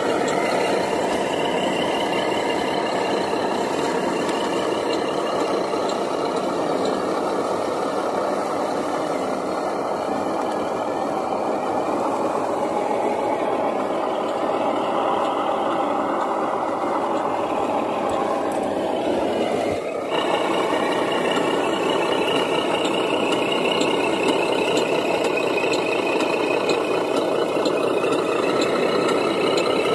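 A 1/14-scale radio-controlled Mercedes 2638 log truck running steadily as it drives under load, a continuous motor-and-gear drive noise with a wavering high whine. About two-thirds of the way through the sound drops away with a brief falling sweep, then picks up again.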